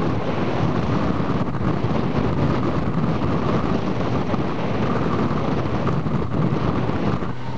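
Rigid inflatable boat running at speed over choppy water: wind buffeting the microphone covers the steady drone of the boat's engine.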